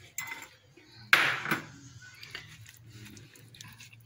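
Silicone spatula scraping and knocking against a glass bowl while working chopped egg into tuna, with one loud, short scrape about a second in and quieter handling after.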